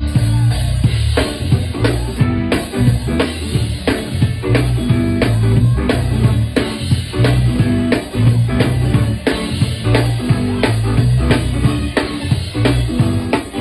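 A band playing an instrumental groove, with a steady drum-kit beat over a low bass line.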